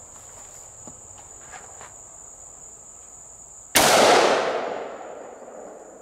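A single rifle shot from an AR-15 in .223/5.56 firing a 55-grain handload, about four seconds in: one sharp, very loud report that echoes and fades over about a second and a half. Insects buzz steadily at a high pitch throughout.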